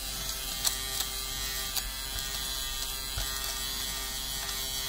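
Electric lint remover (fabric shaver) running, its small motor and spinning cutter humming steadily as it is moved over cloth, with a few light ticks.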